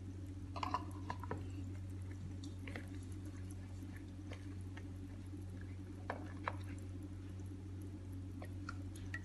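Thick liquid trickling from a spoon into a stainless steel mixing bowl of milk and eggs: faint wet squishing with a few small clicks, over a steady low hum.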